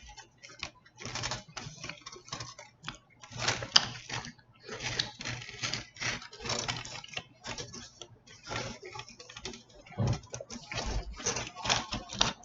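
Close-miked eating of a chicken burrito: an irregular run of short, clicky, wet mouth and food noises, with no steady rhythm.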